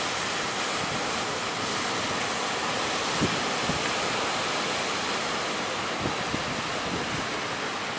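Steady roar of sea surf under strong wind, with a few short low thumps of wind buffeting the microphone.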